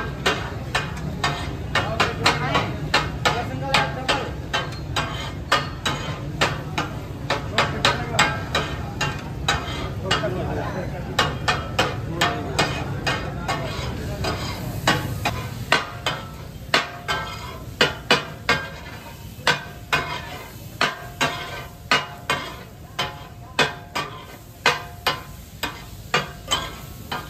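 Metal spatulas chopping and mixing fish on a large flat iron tawa griddle, striking it in a fast clattering rhythm of about two to three clangs a second: the katakat sound that gives the dish its name.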